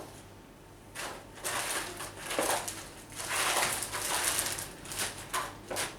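Rummaging by hand among packaging and small tools, an irregular run of rustling, scraping and clattering while searching for a misplaced Allen key.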